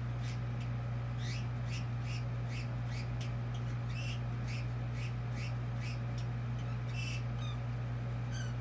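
Caged pet bird chattering in a run of short chirps, about two a second, some rising and some falling in pitch, over a steady low hum.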